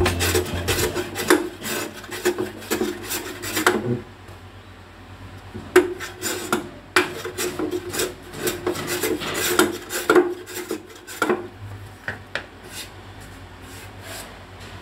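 Hand plane shaving the edge of a plywood cabinet door in quick, repeated strokes. The strokes pause for a second or two about four seconds in, resume, and turn lighter near the end.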